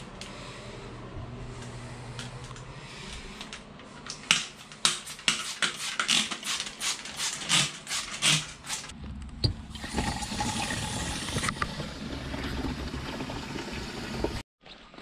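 A string of sharp clatters, two or three a second, then a shower running, its water spraying steadily for several seconds before it cuts off suddenly near the end.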